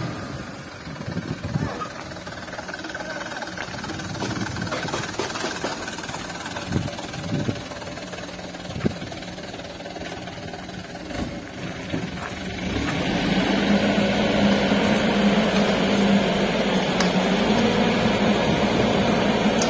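Mitsubishi Fuso Canter dump truck's diesel engine running at low speed, with a few sharp knocks. About two-thirds of the way through it rises to a louder, steady higher speed as it drives the hydraulic tipper, and the load of fill soil slides out of the raised bed.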